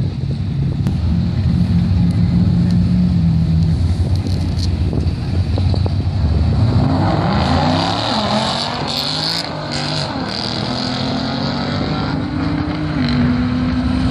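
A twin-turbo Nissan GT-R V6 and a turbocharged Ford Mustang 5.0 V8 run and rev at the drag strip start line. About six or seven seconds in they launch and accelerate hard down the strip, their engine pitch climbing and stepping back through several gear changes.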